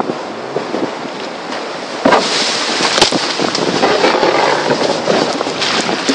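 River rapids rushing and churning around a pirogue, with wind buffeting and handling bumps on the microphone. The rush swells about two seconds in, with a knock there and another about a second later.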